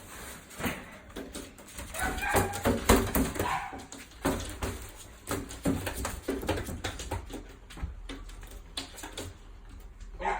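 Dogs whining and giving short cries, mixed with many short knocks and rustles of handling.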